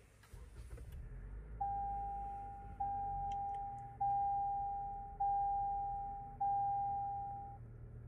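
A 2024 Toyota RAV4's warning chime rings five times in steady succession, one clear tone every second and a quarter, each fading away. Under it is the low rumble of the car's engine and road noise heard from inside the cabin.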